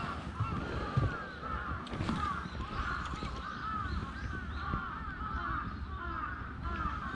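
A flock of birds calling: many short, overlapping calls, several each second, over low handling noise.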